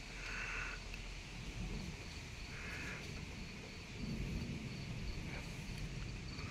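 Faint night insects chirping, with two short bursts of trilling: one near the start and one about three seconds in. A steady low hum sits underneath.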